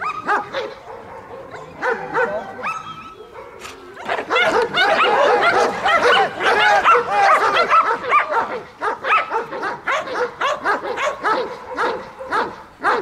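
Dogs barking and yelping excitedly in quick, overlapping barks, thickest from about four to eight seconds in, then thinning to single barks.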